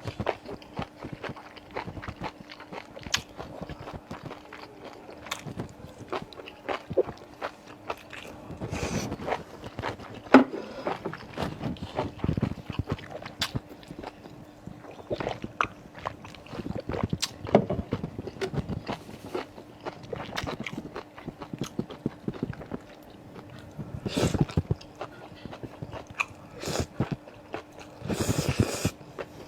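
Close-miked chewing and biting of cold-dressed tripe: irregular crunchy clicks and mouth noises, with a faint steady hum underneath.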